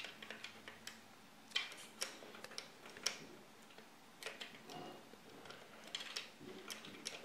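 Faint, irregular metal clicks and short scrapes from a tool tightening the set screws on a KenQuilt Royal longarm sewing machine's rotary hook, after the hook timing has been set.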